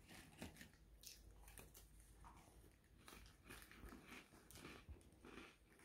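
A Shih Tzu puppy chewing dry biscuits: a quiet, uneven run of small crunching bites.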